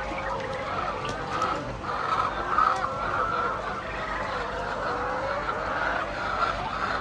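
A flock of hens clucking and calling together in a continuous, overlapping chorus.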